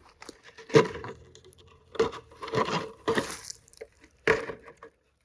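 A wooden stick being handled and set in place as a support: a handful of sharp knocks, cracks and scrapes, the first and last loudest, with light rustling between them.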